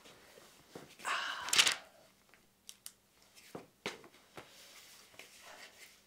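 A person sitting down in an upholstered armchair: a loud rustle of clothing and cushion about a second in. Then a few small clicks and a soft paper rustle as a pen and notepad are handled and the pad is opened.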